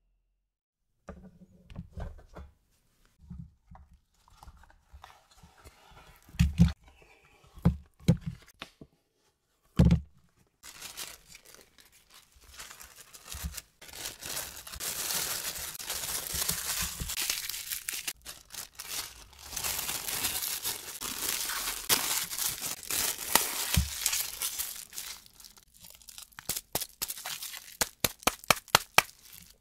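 A few knocks of metal baking trays being handled, then a long stretch of baking paper and plastic wrap crinkling and tearing as the paper is peeled off frozen puree blocks and the blocks are wrapped. Near the end the crinkling turns into a quick run of sharp crackles.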